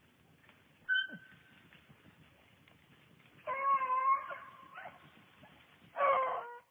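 Rabbit-hunting beagle baying: a short high note about a second in, then two drawn-out, wavering bawls, the last one cut off abruptly near the end.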